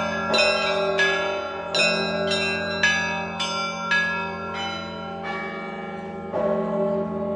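Russian Orthodox church bells hand-rung by a bellringer: the smaller bells are struck in quick succession, about two strokes a second, over the steady hum of a larger bell. The strokes thin out after about four and a half seconds, with one last stroke near the end while the bells ring on.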